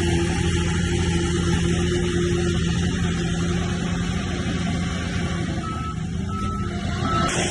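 Diesel engine of heavy earthmoving machinery running steadily, easing off slightly. Three short high beeps sound near the end.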